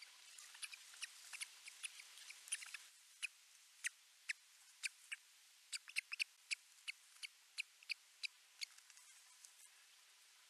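Ospreys at the nest giving short, high-pitched peeps, about twenty of them at irregular intervals, thinning out near the end, over a faint steady hiss.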